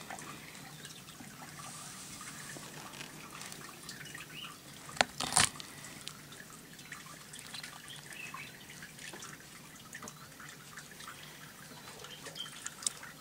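Faint small clicks and ticks of metal forceps picking through the opened head of a catfish, with two sharper clicks about five seconds in.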